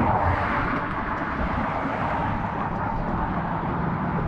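Steady hum of road traffic on the bridge: tyre and engine noise from passing cars.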